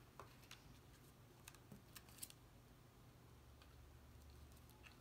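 Near silence with a few faint light clicks of cardstock being handled.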